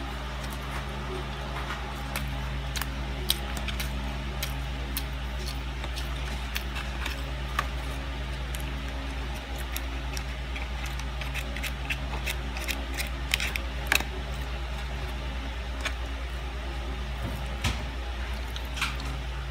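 White plastic fork and knife cutting a syrup-soaked pancake, scraping and tapping on a paperboard tray in scattered small clicks, a few of them sharper. A steady low hum runs underneath.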